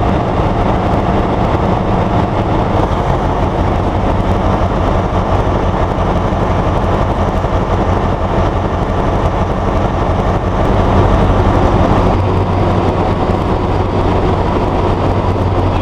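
Alsthom diesel-electric locomotives idling close by: a steady engine hum with a constant hiss over it, swelling slightly for a moment a little after the middle.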